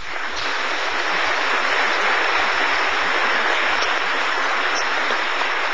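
An audience applauding: many hands clapping, starting at once, swelling over the first second or two, then holding steady.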